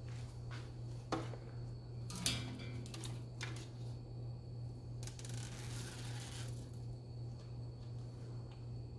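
Handling noise as a self-adhesive LED light strip is stuck up under a cabinet: a few sharp taps and clicks, the loudest about two seconds in, and a rustling scrape around five to six seconds in, over a steady low hum.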